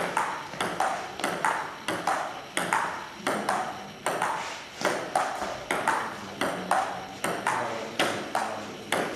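Table tennis ball in a long rally, clicking off bats and table in a steady back-and-forth, about three sharp clicks a second.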